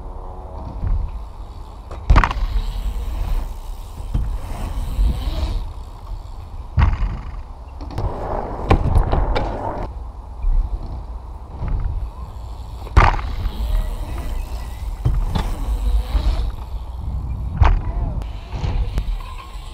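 Wheels rolling on skatepark ramps, a steady rumble broken every few seconds by sharp knocks of landings and impacts, with a short cluster of them near the middle.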